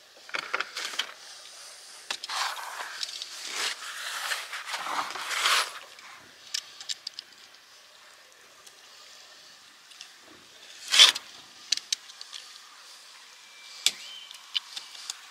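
Hand tools scraping and prying at the old sealant of a sailboat's deck hatch: several rough scraping strokes in the first few seconds, then scattered clicks and knocks, the loudest a sharp knock about eleven seconds in.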